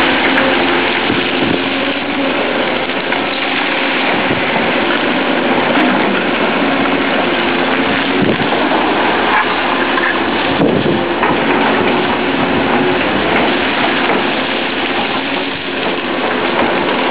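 Caterpillar crawler excavator's diesel engine running steadily as the machine digs, its pitch wavering slightly with the load, over a constant rushing noise.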